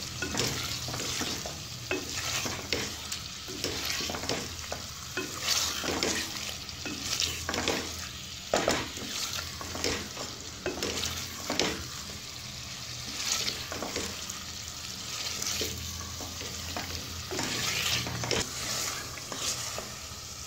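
Wooden spatula stirring and scraping chicken pieces through thick masala in an aluminium pot, the masala sizzling as it fries over a high flame. The scrapes come every second or so over a steady sizzle.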